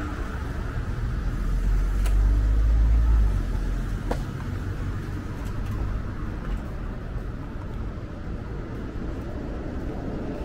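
Street traffic noise with a low rumble that swells as a vehicle passes about two seconds in, then eases back to a steady traffic hum.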